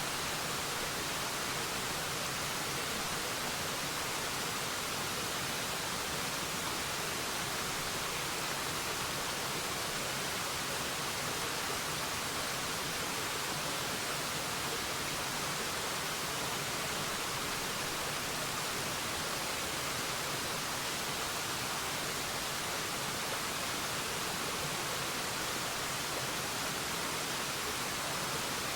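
Waterfall: a steady, even rush of falling water with a hissy edge, unchanging throughout.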